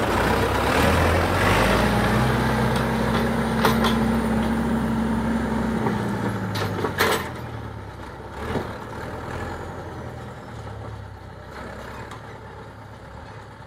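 John Deere 5510 tractor's diesel engine running as the tractor drives off, its steady note loud at first and fading away in the second half. A few sharp clacks are heard around the middle.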